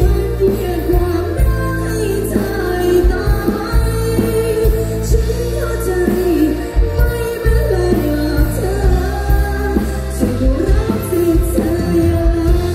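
A woman singing a song live into a handheld microphone, amplified through a stage PA, over band accompaniment with heavy bass and a steady drum beat.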